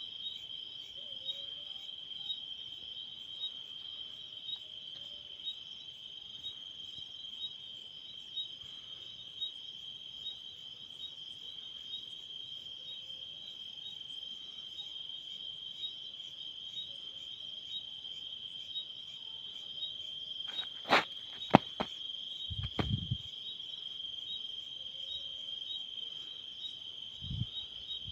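Steady, shrill insect chorus trilling without a break. A few sharp clicks and knocks about three-quarters of the way through, followed by a couple of dull low thuds.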